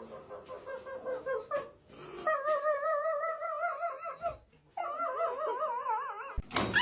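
A dog howling: a few short whines, then two long howls of about two seconds each, wavering up and down in pitch.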